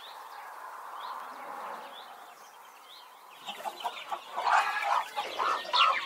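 Chickens clucking, in loud irregular bursts that start about halfway through, with faint short high chirps before them.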